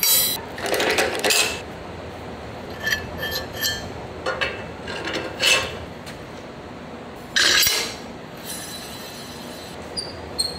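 Steel fabricated parts knocking and clinking together as they are handled and fitted: a round steel plate, a pivot pin and a square-tube arm on a steel table. A string of separate sharp metallic clanks with a ringing tail, the loudest at the very start and about three-quarters through.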